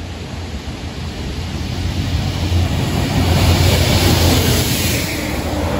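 Network Rail Multi-Purpose Vehicle (MPV) train running past close by: a low engine and wheel rumble with a hiss of rail noise, building to its loudest about three to four seconds in as the vehicles pass, then easing.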